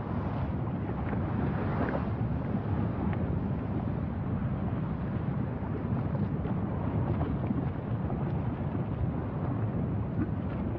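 Steady low rumbling noise of wind buffeting the microphone, with a few faint ticks.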